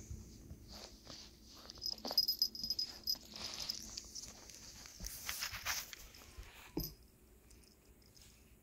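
Shih Tzu–Bichon Frise mix dog chewing and mouthing a rubber chew toy, with rustling and scattered clicks, a thin high-pitched tone about two seconds in, and a sharp click near the end.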